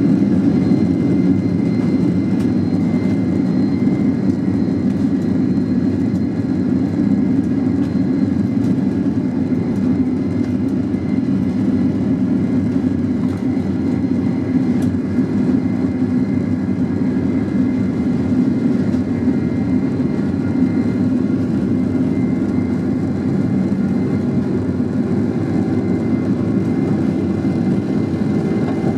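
Boeing 767-400's twin jet engines at takeoff power, heard inside the passenger cabin during the takeoff roll: a steady, loud, deep rumble with a faint high whine above it.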